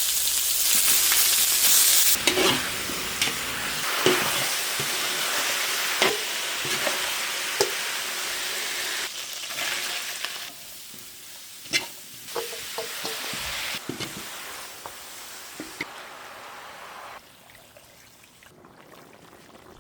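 Pork frying and sizzling in a hot pan while it is stirred, a utensil knocking and scraping against the pan every second or two. The sizzle is loudest at the start, drops about halfway through and is faint near the end.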